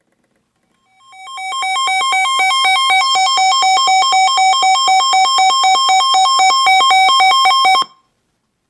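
Electronic alert tone: a rapid repeating pattern of high synthesized notes, about five a second, fading in over a second and cutting off suddenly, sounding ahead of a flash flood warning.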